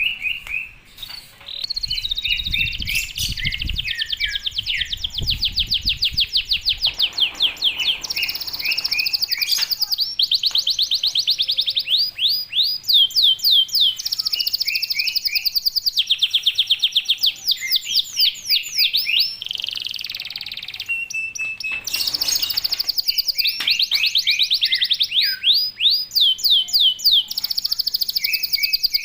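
Domestic canary singing in full, continuous song: long phrases of tightly packed, fast trills and sweeping chirps with only short breaks, the rapid-fire 'tembakan rapat' style of a bird in top singing form.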